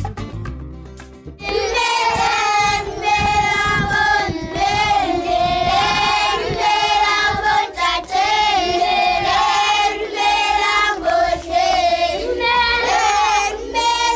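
A group of schoolchildren singing together, clapping along. The singing starts about a second and a half in.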